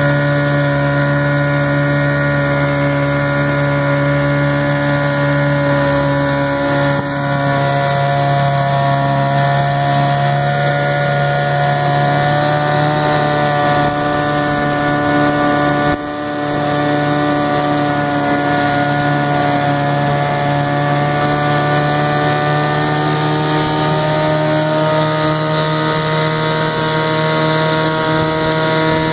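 Vintage Mercury Kiekhaefer KE4 7.5 hp two-stroke outboard motor running steadily under way, pushing a small boat. Its pitch drifts up slightly in the second half, with two brief dips in level.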